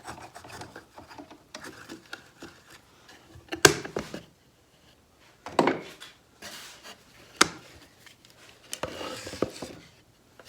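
Wooden workpieces being handled on a workbench: a few sharp wooden knocks, the loudest about a third of the way in, with rubbing and sliding of wood between them.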